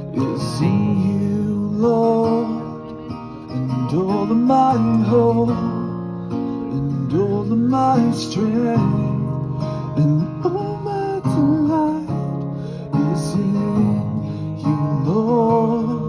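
Acoustic guitar strummed through a small portable amplifier, with the chords changing every second or two and a melody line over them, as an instrumental passage between sung lines.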